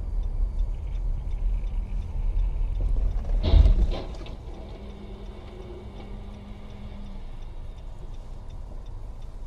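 Car driving on a slushy road, heard inside the cabin: a strong low road rumble, broken about three and a half seconds in by one sharp, loud thump, after which the running noise is quieter.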